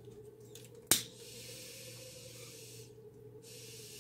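Relighting a tobacco pipe: a sharp lighter click about a second in, then two long hisses of about two seconds each as the pipe is drawn on.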